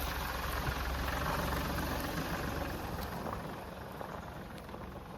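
Car engine running steadily, growing gradually quieter.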